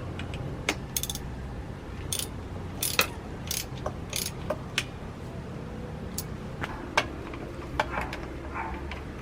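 Irregular metallic clicks and short rattles of hand tools and engine parts being handled during top-end disassembly of a Yamaha RZ50's two-stroke engine, over a low steady hum.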